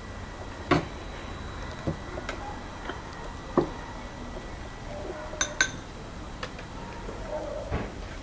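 Scattered knocks and clinks of kitchenware being handled, about eight in all and irregularly spaced, with two brighter ringing clinks in quick succession about five and a half seconds in.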